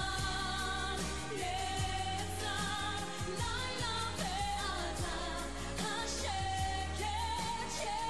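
A woman singing a pop song live with a band, holding long notes over a steady bass line and drums.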